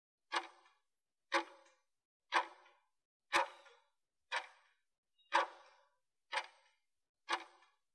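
Countdown timer's clock-tick sound effect, one short tick each second, eight times, marking the last seconds of a 30-second exercise interval before the break.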